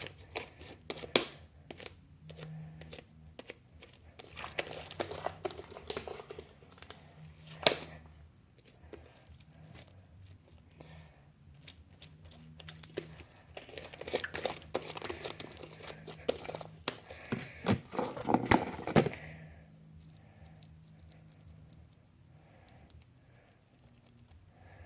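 Sticky homemade slime being kneaded and stretched by hand, giving irregular clicks, pops and crackles that stop about 19 seconds in. The slime is still short of activator.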